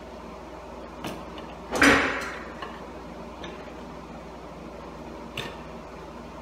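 Hand tools clicking and knocking against a wall-mounted electrical box as wiring is worked at it: a few sharp clicks, the loudest a quick cluster about two seconds in, over a steady low hum.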